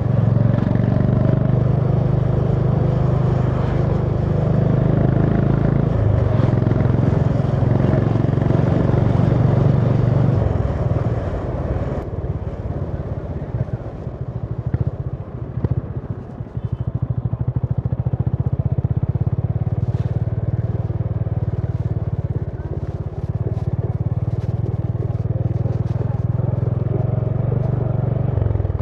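Honda CB350 H'ness motorcycle's air-cooled single-cylinder engine running under way, heard from the rider's seat. It eases off and quietens about twelve seconds in, then picks up again and runs steadily from about seventeen seconds.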